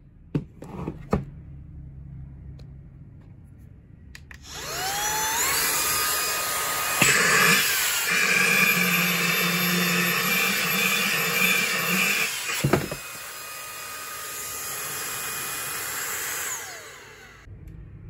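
A few knocks as the box is handled, then the Autobot VX cordless handheld vacuum starts up with a rising whine and runs loudly while its nozzle is held against the lid of its box. A sharp knock comes just before the end of the loud stretch, after which the motor runs quieter. Near the end it winds down with a falling whine and stops.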